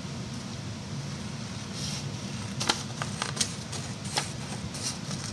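Scissors snipping through construction paper: a series of short, crisp cuts, more frequent in the second half, over a steady low hum.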